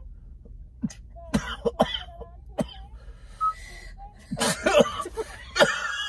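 A man coughing and clearing his throat in a string of short, sharp coughs, with a denser run about four and a half seconds in, set off by a nasal test swab being pushed up his nose.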